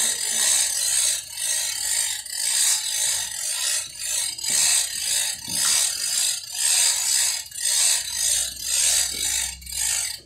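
A construction filling machine running with a rhythmic hiss that pulses about twice a second, then cuts off suddenly at the end.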